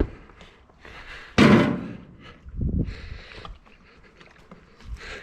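Knocks and thuds as the old air filter element is pulled out of the tractor's air cleaner housing: a sharp knock at the start, the loudest thud about a second and a half in, and a duller thump near three seconds.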